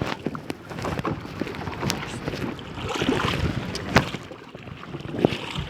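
Kayak paddle strokes splashing in the water, with a few sharp knocks, the loudest about two and four seconds in, and wind on the microphone.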